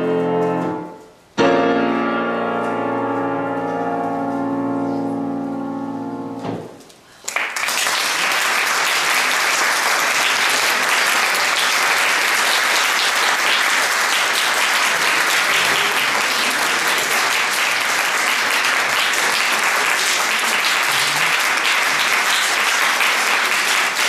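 A grand piano plays the closing chords of a solo prelude, the last chord struck about a second and a half in and left to ring and fade for about five seconds. About seven seconds in, an audience breaks into steady applause that carries on to the end.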